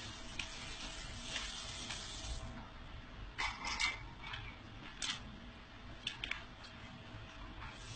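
Paper pages of a thick sketchbook being turned by hand: a string of short papery rustles and flicks, the loudest a little past the middle, over a low steady hum.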